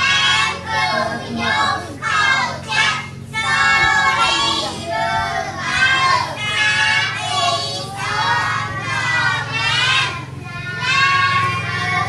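Children's high voices singing continuously over a steady low hum.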